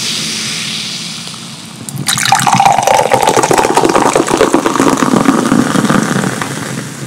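Canada Dry ginger ale fizzing with a fading hiss. From about two seconds in it is poured from the can into a glass, splashing and fizzing, with a tone in the pour that falls steadily in pitch as it goes on.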